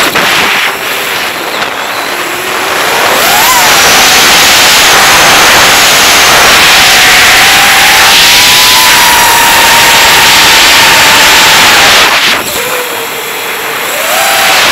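Racing quadcopter's motors and propellers whining loudly over a rush of air on the onboard microphone. The pitch glides up and down with the throttle, and the sound drops off twice: shortly after the start and again about twelve seconds in.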